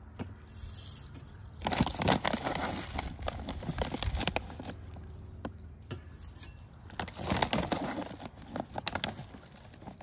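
Bird seed tipped from a small metal trowel into a plastic tube feeder, making a rattling, crackling patter of seeds. It comes in two pours, one about two seconds in and another about seven seconds in.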